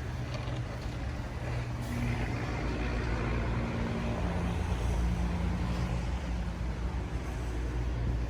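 A large engine running steadily, a low, even hum with a haze of noise over it, from a vehicle at work clearing snow.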